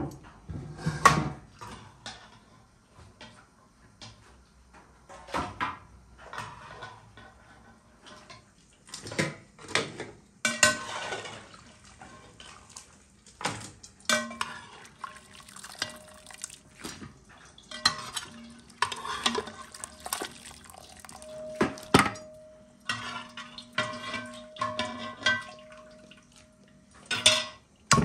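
Metal cookware and utensils clattering and clinking: lids, a metal steamer tray and a fork knocking against the pots as boiled goose is lifted out of its broth. Through the second half a metal pan keeps ringing after being struck.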